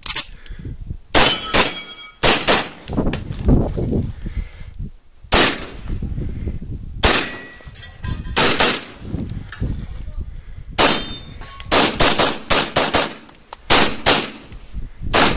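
Handgun fired at close range in quick pairs and short strings, about twenty shots in all with pauses of one to three seconds between groups, and a metallic ringing after some shots, typical of steel targets being hit.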